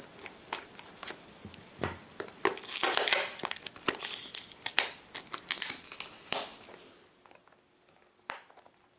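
Plastic wrapping on a small box being cut with scissors and torn away by hand: a run of crinkling, crackling and tearing that is loudest around the middle and dies away near the end, with one sharp click shortly before the close.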